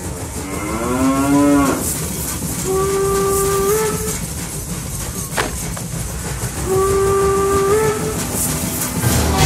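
A cow moos once, its call rising in pitch. Then a steam locomotive whistle sounds twice, each blast about a second long and stepping up in pitch near its end, over the steady low rumble of the train running.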